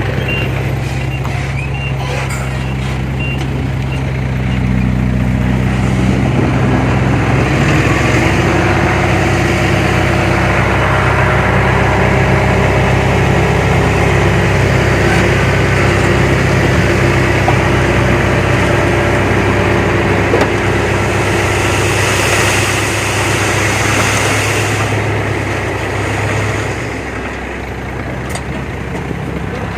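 Heavy diesel engines of earthmoving machinery running steadily under load, the note shifting a few seconds in. A longer hiss comes about three-quarters of the way through.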